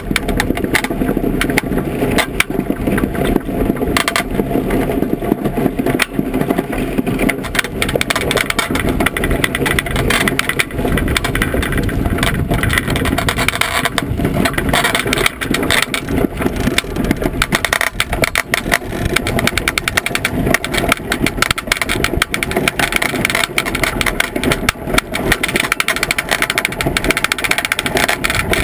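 Iceboat under sail: a loud, continuous rumbling rush from the runners skating over the ice and the boat's frame, thick with rattling clicks, mixed with wind buffeting the boat-mounted microphone.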